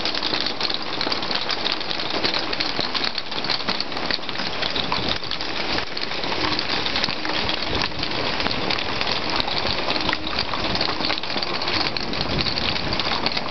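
Marble-sized hail and rain pelting down in a storm: a dense, steady hiss packed with rapid clicking impacts.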